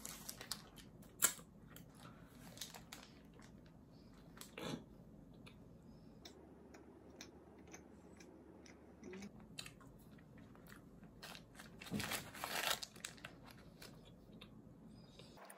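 A person biting and chewing a chewy garlic bread, with small crunches scattered throughout and a louder cluster of them about 12 seconds in.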